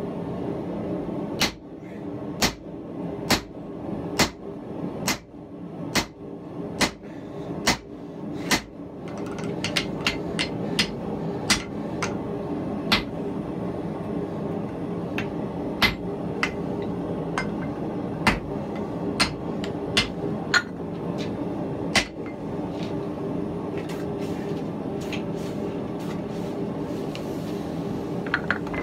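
Hand hammer forging 4140 steel on a Harbor Freight anvil. The blows come about once a second at first, then quicker and lighter from about nine seconds in, and stop a little past twenty seconds. A steady hum runs underneath.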